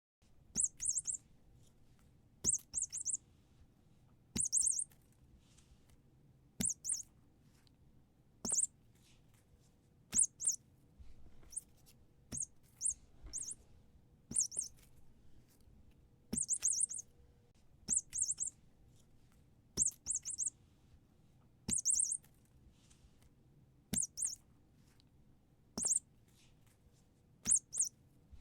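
Squeaky toy being squeezed over and over: short, high squeaks, often in pairs, about every two seconds, each set starting with a faint click.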